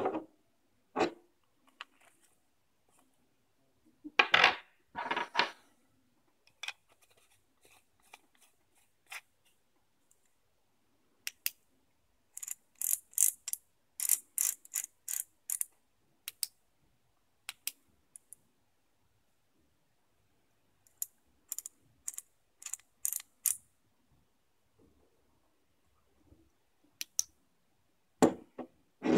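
A small aluminium LED flashlight knocked down on a table and handled, then two runs of quick, sharp clicks from its tail switch being pressed over and over to cycle its light modes.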